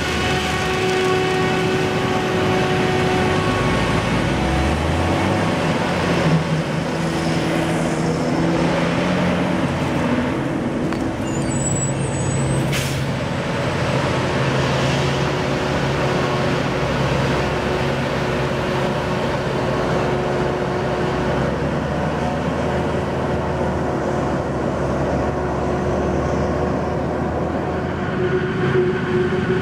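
Claas Jaguar 960 self-propelled forage harvester running under load while chopping standing maize, with a tractor engine pulling a silage wagon alongside. The machinery sound is loud and steady, and the engine note shifts in pitch a few seconds in.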